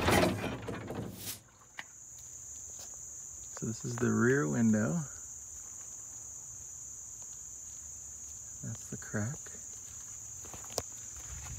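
The running sound of the bus's Detroit Diesel 8V71 two-stroke V8 cuts off in the first second. After that there is a steady high-pitched drone of insects, with a brief wavering voice-like sound about four seconds in.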